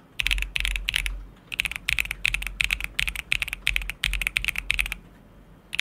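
Typing on a MonsGeek M1W mechanical keyboard kit: rapid runs of keystrokes in quick bursts with short pauses between them, each stroke a sharp clack over a low thud of keys bottoming out. The typing stops about a second before the end.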